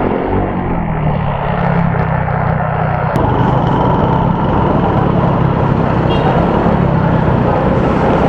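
Motorcycle engine running and wind and road noise while riding, picked up by an SJCAM SJ10X action camera's microphone, whose noise reduction the owner says makes ambient sound choppy and robotic with an echo. A sharp click about three seconds in.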